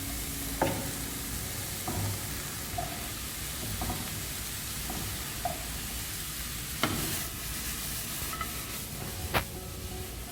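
Sliced onions and vegetables sizzling in olive oil in a pan while being stirred, a steady frying hiss with a few sharp knocks of the utensil against the pan. The vegetables are being lightly sautéed, not fully cooked.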